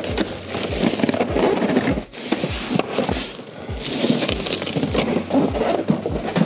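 Polystyrene foam packing inserts rubbing and scraping against each other and the box as they are pulled out, a dense run of scrapes and crackles. Under it, background music with a steady low beat.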